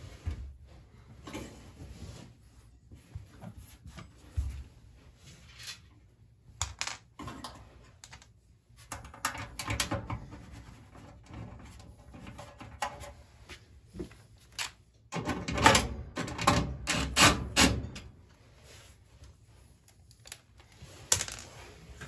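Sheet-metal blower housing cover of a clothes dryer knocking and rattling against the cabinet as it is worked back into place by hand: scattered clicks and clanks, with a run of louder clattering a little past the middle and one more sharp clack near the end.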